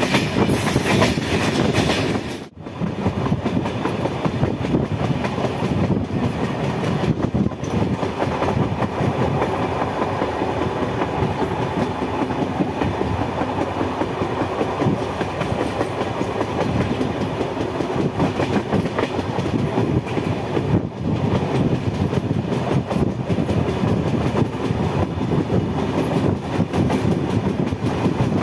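Steady rumble and clatter of a moving train's wheels on the track, heard from aboard the train, with one brief drop in level about two and a half seconds in.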